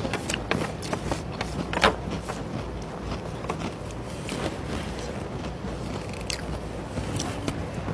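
Close-up eating sounds: chewing and small crunches of a mouthful of food, including shredded cabbage, with wooden chopsticks clicking and scraping in a plastic bento box. Scattered light clicks, the sharpest about two seconds in, over a low steady room hum.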